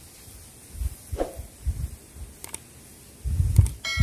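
Low, irregular rumbles on the microphone with a couple of faint clicks, then near the end a bright bell-like chime rings out and slowly fades: the sound effect of an on-screen subscribe-button animation.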